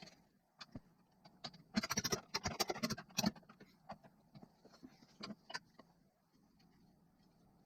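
Small metal parts and tools clinking and rattling as they are handled on a workbench: a quick cluster of jingling clicks about two seconds in, then a few separate clicks.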